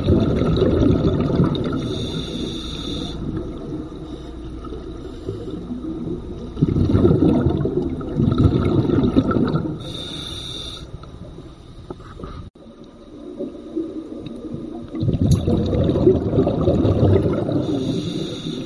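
Scuba breathing through a regulator, heard underwater: three long bursts of exhaled bubbles rumbling, each ending in a short high hiss, with quieter pauses between breaths.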